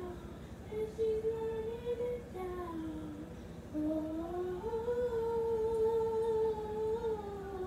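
A girl humming a slow tune without words, in long held notes that glide up and down, the longest near the end.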